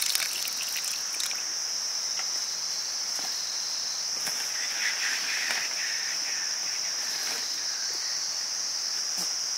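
A chorus of insects holding one steady, high-pitched drone.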